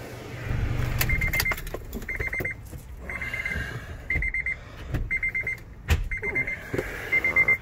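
Honda Element's key-reminder warning chime beeping with the driver's door open and the key left in the ignition: a quick run of high beeps repeated about once a second. There is a sharp knock about six seconds in.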